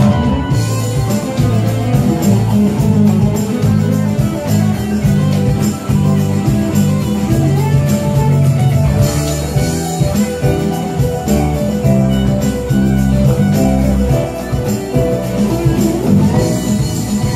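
A band playing an instrumental passage live in rehearsal: bass guitar, electric keyboards and electric guitar over a steady beat, with no vocals.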